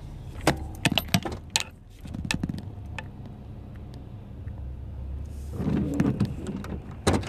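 Cab of a 2005 Ford Explorer Sport Trac with its 4.0-litre V6 idling low and steady. Over it come a quick run of sharp clicks and light metallic jingles in the first two seconds, a busier patch of knocks about six seconds in, and one more click near the end.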